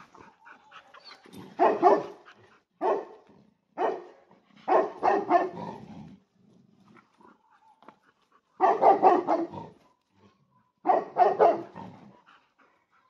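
Dogs barking and growling in six sudden bursts, some short and some about a second long, during a tense face-to-face meeting. These are warning barks and growls: the older male dog is telling an over-excited young dog to keep away.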